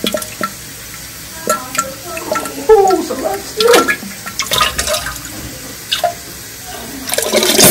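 Water running from a bathroom tap into a sink, a steady hiss with a few clicks and short pitched sounds over it.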